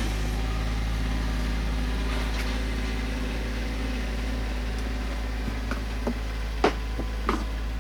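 A steady low mechanical hum, with a few sharp clicks and knocks of plastic near the end as the halves of a plastic heater box are pried apart.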